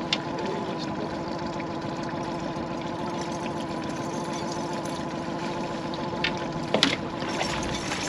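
Boat's outboard motor running steadily at trolling speed, a constant pitched drone. A few sharp knocks about six to seven seconds in.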